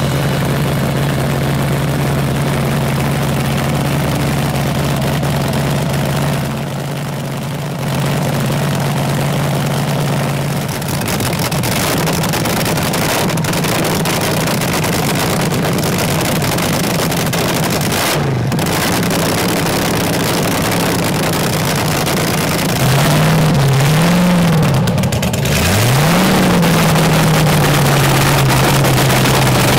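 Supercharged Arias-headed V8 of a nostalgia Top Fuel dragster idling steadily on alcohol while it warms up. The throttle is blipped briefly about two thirds of the way in, then a few more times near the end, the pitch rising and falling before it settles back to idle.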